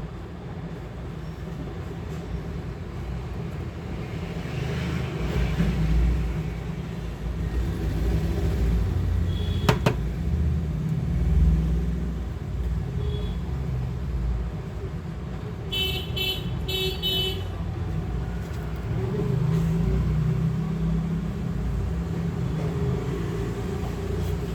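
Steady low rumbling background noise, with a single sharp click about ten seconds in and a quick run of short, high beeps about two-thirds of the way through.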